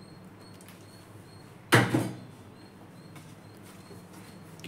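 A single sharp knock or clunk about two seconds in, over a faint steady low hum.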